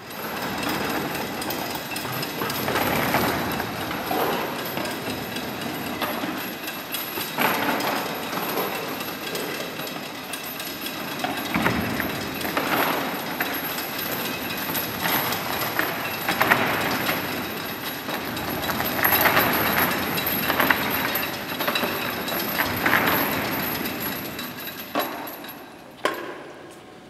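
Heavy steel chains rattling and clanking while a fibreglass animatronic figure scrapes and knocks across a hard floor as the chains drag and hoist it, a continuous clatter that swells every second or two. A single sharp knock comes near the end.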